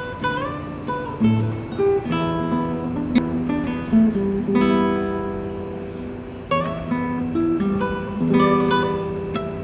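Solo acoustic guitar playing a slow melody with bass notes and chords, the notes plucked and left to ring.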